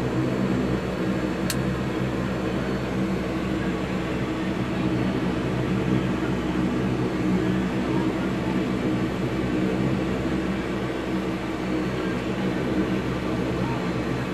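Lockheed L-188 Electra's four Allison 501 turboprop engines running steadily, heard from inside the cockpit: an even drone with several steady low tones. A single brief click about a second and a half in.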